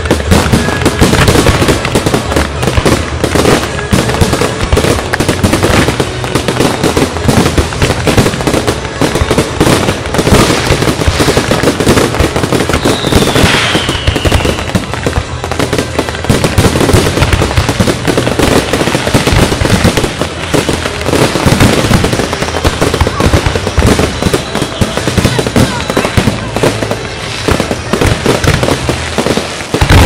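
Aerial fireworks display: a continuous barrage of shell bursts and crackling, one bang crowding on the next. A single falling whistle is heard about thirteen seconds in.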